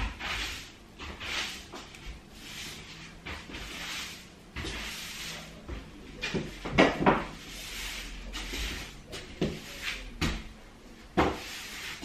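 Broom sweeping a tiled floor: short brushing swishes about once a second, with several sharp knocks around the middle and toward the end.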